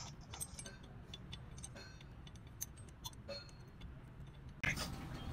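Light, irregular metal clicks and scrapes of a hand tool working on the cast coolant housing of a CAT 950B wheel loader's overheating cooling system. Near the end the sound jumps suddenly louder to a broad rush of noise.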